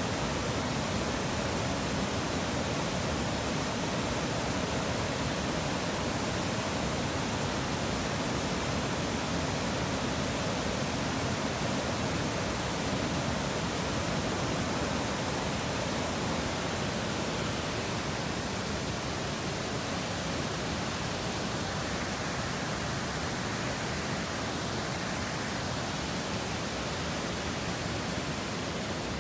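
Waterfall's rushing water, a steady, even noise that holds without a break.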